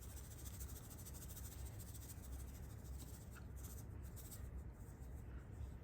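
Faint scratchy rustling of onion powder being shaken from a spice container over raw chicken pieces in a bowl, over a low steady hum.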